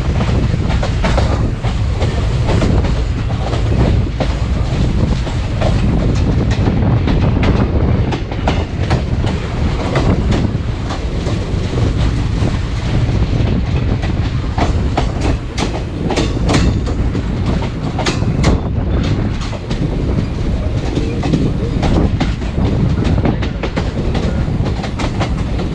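Indian Railways express passenger train running at speed, heard from beside its coach: a steady rumble with wheels clacking over rail joints. A denser run of sharp clacks comes about halfway through, as the wheels pass over points coming off the loop line.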